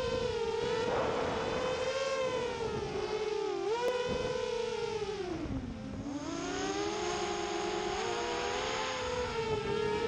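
FPV racing quadcopter's brushless motors and propellers whining, the pitch rising and falling with throttle. The whine sags low about six seconds in as the throttle is eased off, then climbs back up.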